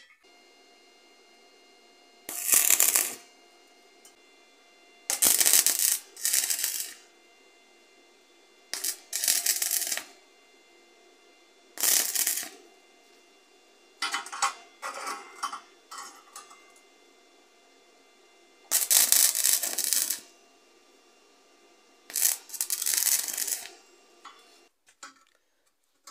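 Stick (arc) welder striking and burning short tack welds on steel tube: about ten separate bursts of crackling arc, each about a second or less, with a faint steady hum between them.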